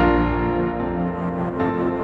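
Background music: soft piano or keyboard chords with a gentle ambient feel.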